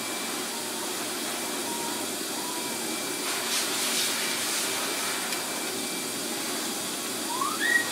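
Electric blower motor running steadily, a continuous whoosh. A short rising squeal near the end.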